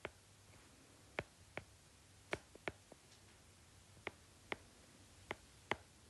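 Stylus tip tapping and clicking on a tablet's glass screen while numbers are handwritten, about a dozen faint, sharp clicks at irregular intervals over a low steady hum.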